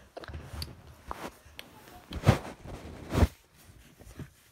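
Handling noise from a phone camera being moved around: rustling and rubbing against the microphone, a few small clicks, and two dull thumps a second apart about two seconds in.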